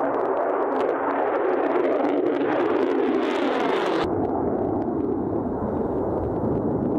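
Loud, steady jet noise from an F-35 Lightning II's single turbofan engine as the jet takes off and climbs away. About four seconds in, the higher part of the sound cuts out suddenly.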